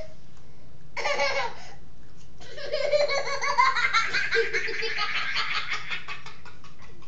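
A person laughing hard: a short laugh about a second in, then a long fit of rapid, pulsing laughter that fades out near the end.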